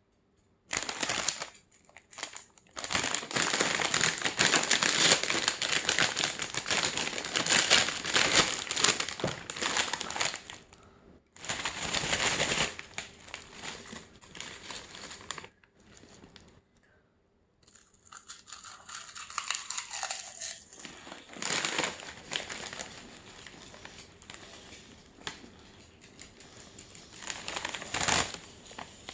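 Potato chip bag crinkling and potato chips being crunched. The crackly noise comes in long dense stretches broken by short pauses.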